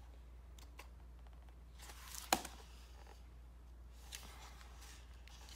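Paper handling: the thin pages of a softcover planner book are turned and rustle softly, with a few light clicks. About two seconds in there is a brief rustle, followed at once by a sharp snap of the page or cover.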